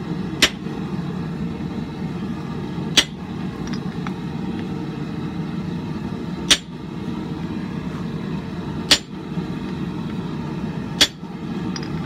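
Hammer blows on the head of a handled hammer-eye punch, driving it into a hot bar of mild steel on the anvil to punch an eye: five sharp strikes, two to three seconds apart, over a steady low rumble.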